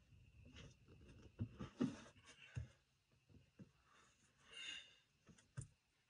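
Faint scattered clicks, knocks and scrapes from a hydraulic floor jack being worked as it slowly lowers a backhoe transmission, with a short hiss about four and a half seconds in.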